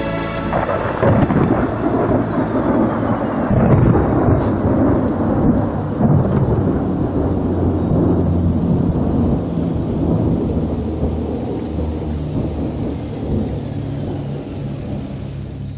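Thunder with rain: a loud rumble builds about a second in, then rolls on and slowly fades.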